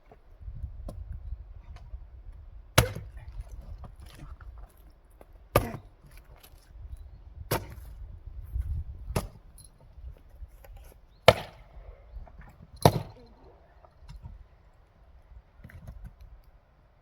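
Axe splitting firewood for a wood-fired boiler: six sharp chopping strikes, one every one and a half to two seconds, in the first thirteen seconds.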